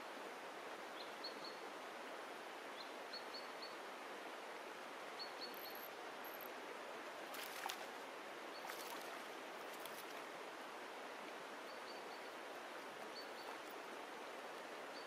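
Steady rush of a shallow stream running over stones, with a small bird repeating a short high call of two or three quick notes about every two seconds. A few sharp clicks come in the middle.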